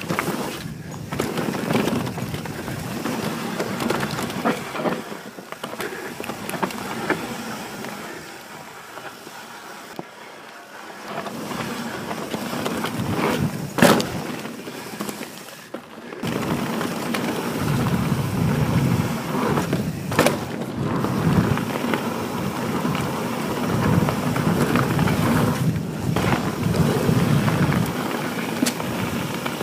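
Santa Cruz Bronson full-suspension mountain bike riding fast down a dirt forest trail: knobby tyres rolling over dirt, leaves and roots with the bike rattling, and two sharp knocks from hits partway through. The rumble grows louder and deeper about two-thirds of the way in.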